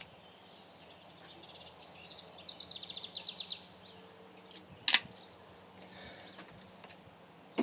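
A rapid trill of high notes stepping down in pitch, like a songbird's, then a single sharp crack about five seconds in, with a faint click near the end.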